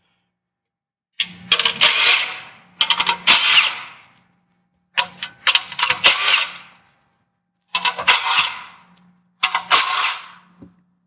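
Power ratchet with a 10 mm socket running nuts off, in five short runs of rapid clicking over a faint motor hum.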